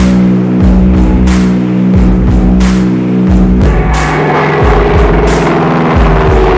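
Rock music with a steady drum beat, a hit about every two-thirds of a second over held low chords; the chord changes a little over halfway through.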